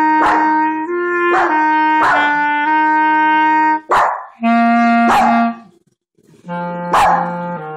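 Clarinet playing slow held notes while a Shih Tzu barks along in short yips, about six of them, roughly one a second. The clarinet breaks off briefly about six seconds in.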